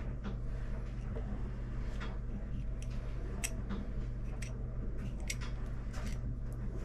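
Scattered light clicks and ticks of small carburetor parts being handled as the primer cover is lifted off a Mercury outboard carburetor, over a steady low hum.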